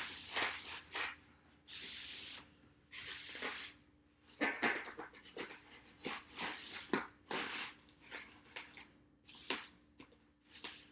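Packing tape being peeled off a styrofoam shipping case: several ripping pulls of about half a second each, with shorter crackles and handling noises between them.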